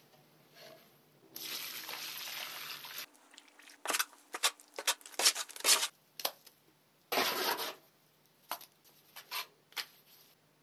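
Dry sand mix hissing as it pours from a sack into a metal tub for about a second and a half, then a trowel spreading wet mortar on a concrete floor in a quick run of short scraping strokes, with a few more strokes near the end.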